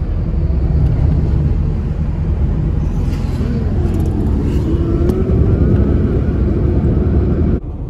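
Road and engine noise inside a moving Suzuki car's cabin: a steady low rumble, with a faint engine note that wavers up and down in pitch from a few seconds in. The sound drops suddenly in level near the end.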